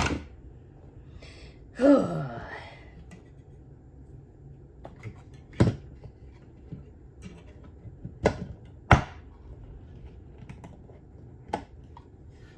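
Scattered sharp plastic clicks and knocks as batteries and a plastic battery holder are handled, four of them standing out in the second half.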